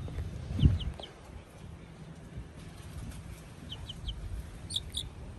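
A young chicken peeping: short, high, slightly falling peeps in twos and threes, with two louder peeps near the end. A low thump a little under a second in is the loudest moment.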